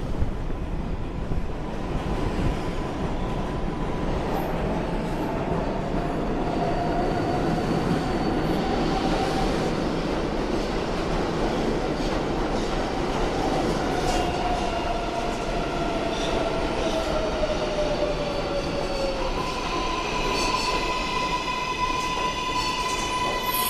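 Kawasaki R142A subway train pulling into an underground station and slowing along the platform: a steady rumble of wheels on rails with a gliding whine that falls in pitch in the middle. Several steady high tones come in near the end as it brakes toward a stop.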